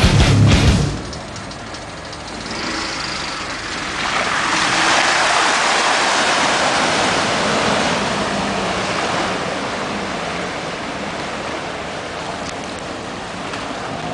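Steady rushing and splashing of water, swelling about four seconds in and slowly easing off.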